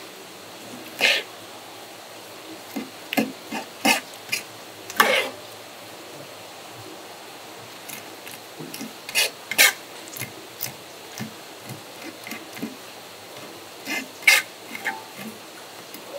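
Irregular knife strokes on a cutting board while squid is cleaned and cut for sashimi: sharp taps and short scrapes at uneven intervals over a steady hiss.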